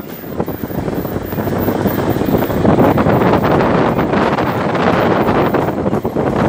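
Wind buffeting a microphone held out of the window of a moving car, with the car's driving noise underneath; the rush builds over the first couple of seconds and stays loud and gusty.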